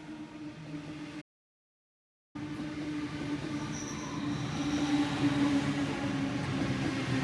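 A train running through a station, a steady rumble of wheels and motors with a low held tone. A faint high wheel squeal comes about four seconds in. The sound cuts out completely for about a second near the start, then returns louder.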